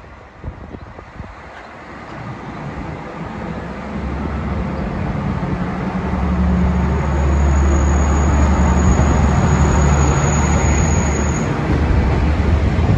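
Kanto Railway KiHa 532 diesel railcar pulling away under power, its diesel engine running hard and growing steadily louder as it comes closer, then holding loud. A thin, high, steady tone sounds for a few seconds in the middle.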